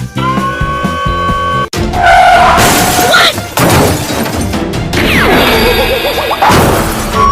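Background music, then a run of cartoon crash and smash sound effects, noisy and loud, with a falling swoop among them.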